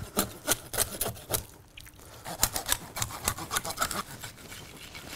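Serrated knife sawing through the thick bones of a large cod in quick back-and-forth strokes, in two runs with a short pause between them.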